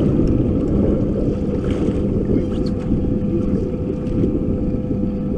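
Wind buffeting the microphone on an open boat, over the steady hum of the boat's motor; a second, lower tone joins the hum about a second in.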